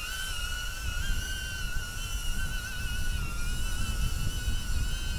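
Small quadcopter camera drone hovering, its propellers giving a steady high whine that wavers slightly in pitch, over a low rumble of wind on the microphone.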